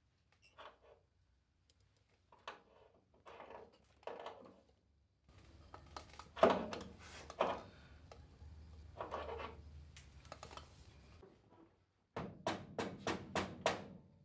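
Hands handling stainless steel fuel lines and their fittings under a Porsche 911: scattered metal knocks and scrapes, the loudest about six seconds in, then a quick run of clicks, about four a second, near the end.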